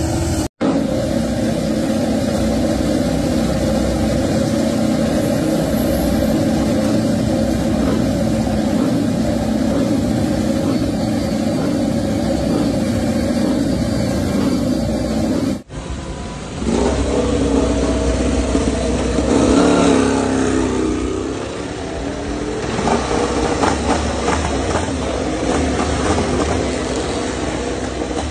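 Ducati MotoGP race bikes' V4 engines running on rear stands with a steady drone. After a cut about halfway through, the engines rev up and down in repeated rising and falling sweeps.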